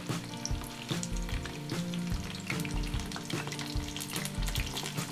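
Hot oil sizzling and crackling as risoles and sesame balls deep-fry in a pan, with a dense, continuous patter of tiny pops.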